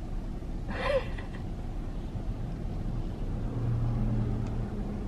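Steady low rumble of a touchless car wash heard from inside a closed minivan while the wash waits to start, with a low hum swelling briefly around four seconds in.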